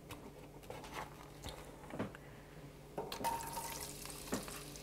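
Diced white onion tipped off a metal bench scraper into hot vegetable oil in a soup pot: a few soft clicks, then a faint sizzle of the onions starting to fry that picks up about three seconds in.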